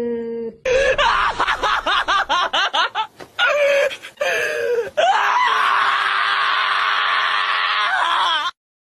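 A dog screaming while being held for a nail trim: a run of short, rapid, wavering yelps, then one long unbroken scream that cuts off suddenly near the end. At the very start comes the brief tail of a cat's low wavering yowl.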